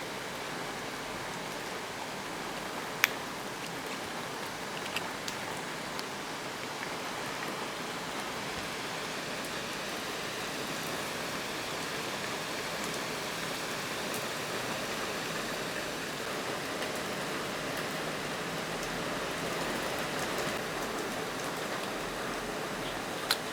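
Miele W2241 front-loading washing machine running, with a steady rush of water, plus a sharp click about three seconds in and another near the end.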